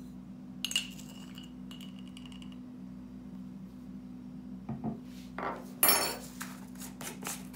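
Metal spoon clinking against a glass mixing bowl as sugar is spooned in, one ringing clink about a second in. Near the end, a louder clatter of the spoon set down on a wooden tabletop, followed by several sharp knocks and clicks.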